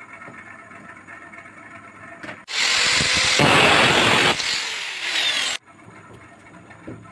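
Angle grinder with a thin cutting disc cutting through a metal rod clamped in a vise. The loud cutting noise starts about two and a half seconds in, lasts about three seconds, and stops suddenly.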